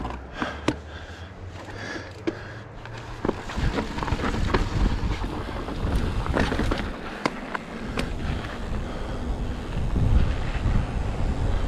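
Mountain bike rolling over a dirt trail: tyre noise with sharp knocks and rattles from the bike, and wind buffeting the microphone. It grows louder and rougher about three seconds in.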